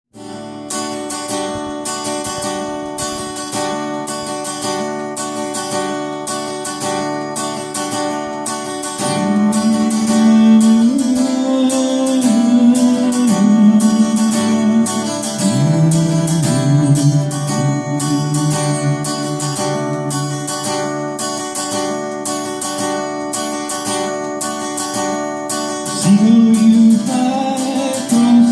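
Acoustic guitar strummed in an even rhythm. About nine seconds in, a held, sliding melody line comes in over it and the music gets louder.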